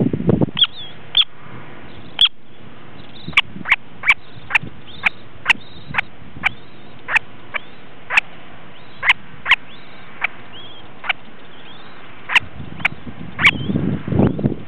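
Freshly hatched semipalmated plover chicks peeping: a steady series of short, high peeps, about one or two a second. A louder low rustling comes in near the end.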